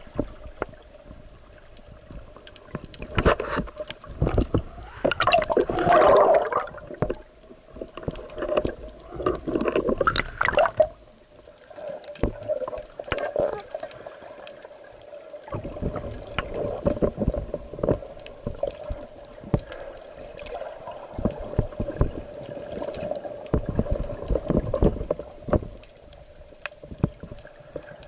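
Water sloshing and gurgling around a camera during a spearfishing dive, loudest in stretches a few seconds in and about ten seconds in. A steady faint hum runs underneath.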